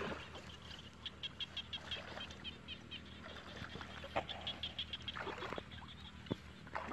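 Water splashing as someone wades and handles a woven wicker fish trap in shallow water. Behind it runs a rapid series of high clicking calls, about five a second, with one sharper knock about four seconds in.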